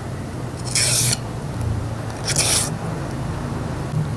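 A small knife blade slicing through a thin plastic sheet: two short rasping cuts about a second and a half apart, over a low steady hum. It is a sharpness test of a new knife.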